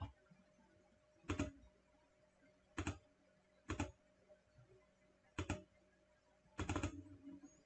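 Faint computer mouse clicks, single clicks every one to two seconds with a quick run of several clicks near the end, as line segments are placed on a drawing.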